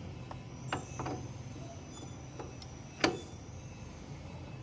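A few scattered light metal clicks and taps of a hand tool working on a forklift steer-axle kingpin housing, with one much sharper knock about three seconds in, over a steady low hum.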